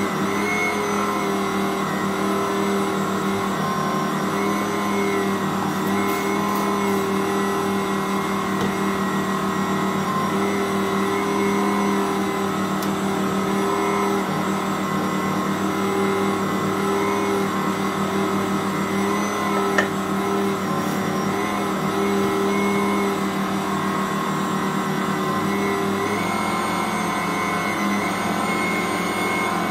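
Ankarsrum 6230 stand mixer's motor running steadily under load as it turns the bowl and kneads a stiff bread dough, a constant hum with a slight waver. A single sharp click about two-thirds through.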